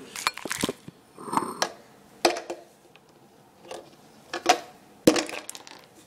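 Small plastic ketchup bottle knocked against a granite countertop and handled, about eight sharp, irregular knocks with short pauses between them: working loose an ice cube frozen inside the bottle.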